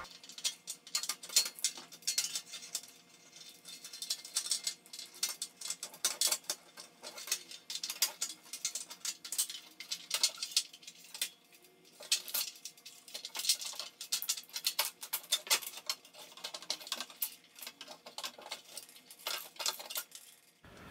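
Thin sheet-metal wiring cover of a fluorescent light fixture being pushed and worked into place against the fixture channel. It makes a long, irregular run of light scraping, clicking and rattling.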